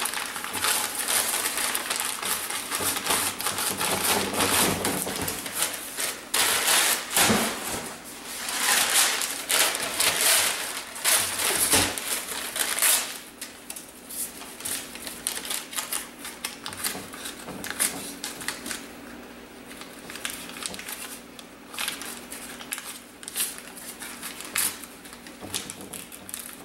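Newspaper being crumpled, torn and pressed onto a painted board, then peeled away: a busy crackling rustle of paper that thins out after about thirteen seconds into scattered crinkles and clicks.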